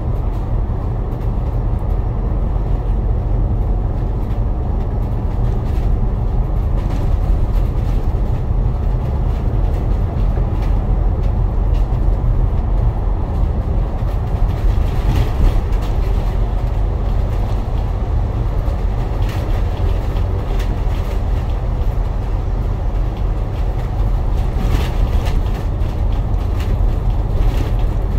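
A KMB bus driving along, heard from inside the cabin: steady, low-pitched engine and road noise with no change in speed.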